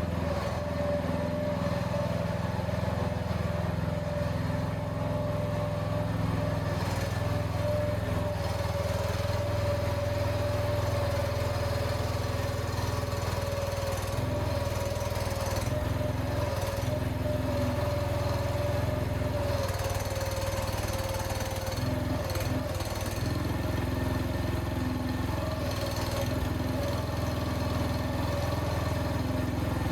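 A vehicle engine running steadily under way, a low hum with a steady whine over it.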